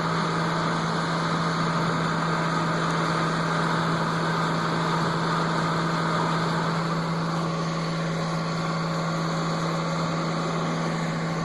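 Heavy farm machinery engine running steadily with a strong low hum and mechanical noise; the higher-pitched part of the noise eases about seven seconds in.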